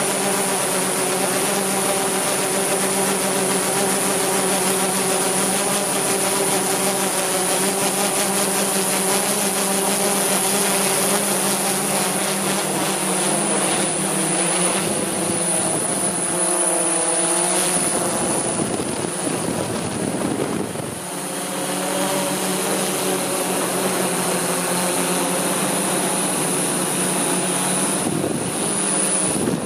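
Camera drone's electric motors and propellers whining steadily, heard from its own on-board microphone. The pitch wavers and bends about halfway through as the motor speeds change.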